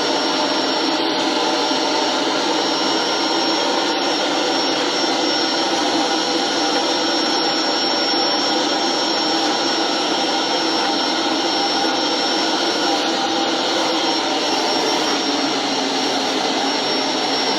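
Vacuum cleaner running steadily with a thin high whine, being used to groom a dog's coat.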